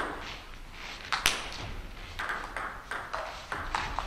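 Table tennis ball clicking in a rally: sharp pings of the celluloid ball on the table and off the rubber bats, the sharpest about a second in.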